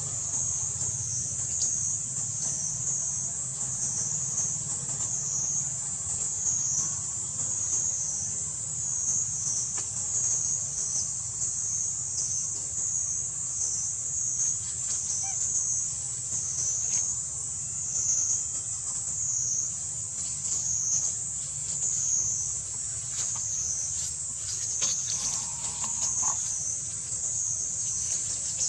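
Insect chorus in the forest: a steady high-pitched buzz that swells and fades about once a second, over a low steady hum.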